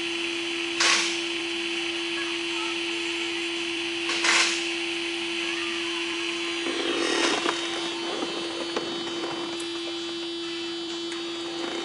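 A small power tool runs with a steady hum and hiss. Two short loud rushes of noise come about a second and four seconds in, followed by light clicks and rustling from about seven seconds on.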